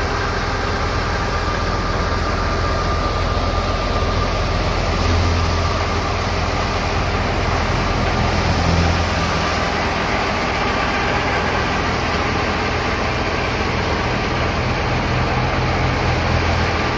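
A Fiat 640 tractor's diesel engine running steadily under load, driving a wheat thresher through its PTO shaft as wheat is fed in, a constant mechanical drone and whir with two slight swells.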